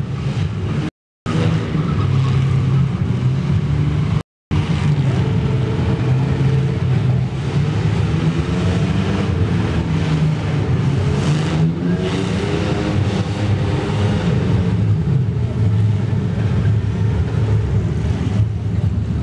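Chevrolet Opala engine revving hard and wavering up and down while the car spins in a tyre-smoking burnout. The sound cuts out completely twice, briefly, in the first few seconds.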